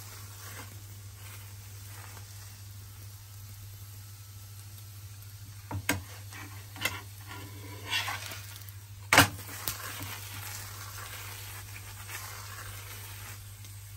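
Stuffed aloo paratha sizzling quietly on a hot tawa, over a steady low hum. A perforated metal spatula clinks and scrapes against the griddle a few times in the middle, loudest about nine seconds in.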